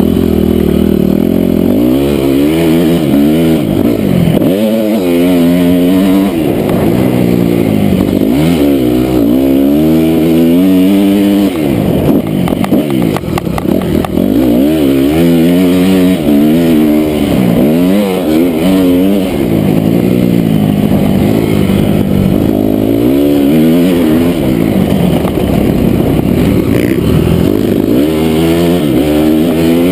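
2008 Honda CRF250R's single-cylinder four-stroke engine revving up and falling off again and again as the throttle is opened and shut, its pitch climbing and dropping every two to three seconds. A patch of clattering knocks comes about halfway through.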